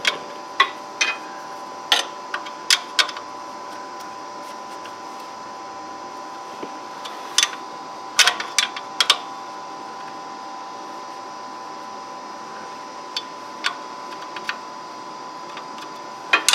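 Scattered sharp metal clicks and clinks of a wrench working the clutch adjustment bolt on a Scag Tiger Cat mower, in small uneven clusters, while the clutch air gap is being tightened. A steady hum runs underneath.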